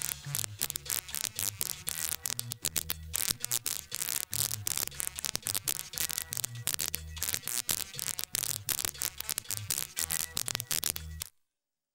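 Recorded music from an old record, a steady pulsing beat in the bass buried under heavy crackle and hiss; it cuts off suddenly near the end.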